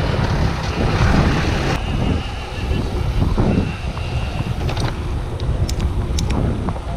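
Wind rushing over a chest-mounted GoPro's microphone while a mountain bike is ridden, with a few sharp ticks about five to six seconds in.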